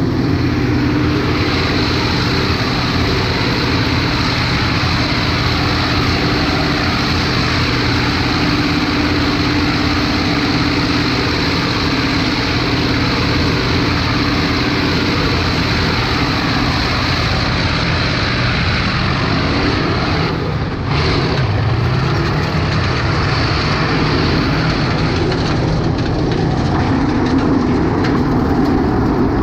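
M-84 main battle tank driving, its V12 diesel engine running loud and steady under way. About twenty seconds in the engine note dips briefly, then comes back at a changed, rising pitch.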